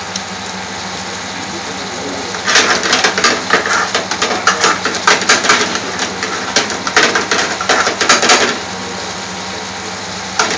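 Thick tamarind sauce with king prawns cooking in a pan over a gas flame, over a steady hiss. For about six seconds in the middle it pops and spits rapidly and unevenly, then settles back to the hiss.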